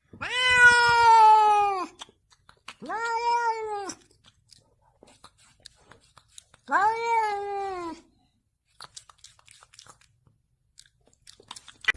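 Domestic cat meowing three times: long, drawn-out meows, each holding its pitch and then dropping at the end. The first is the longest and loudest.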